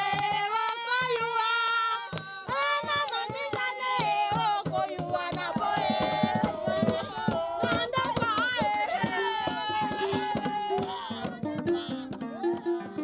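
Several voices singing with sliding pitches over fast percussion strokes; near the end a plucked string instrument comes in.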